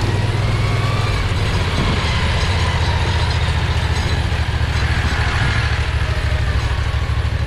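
Predator 670 V-twin engine running steadily as the go-kart drives along a rough trail, with a fainter whine above the engine note that rises and falls.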